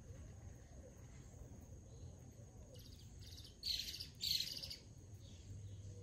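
Blue-gray tanager calling: three high calls a little past the middle, a faint one followed by two loud ones in quick succession, each dropping slightly in pitch.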